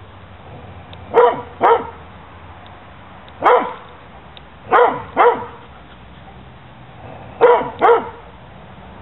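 Dog barking in short, loud, falling barks, mostly in pairs: seven barks in all, in three quick pairs and one single.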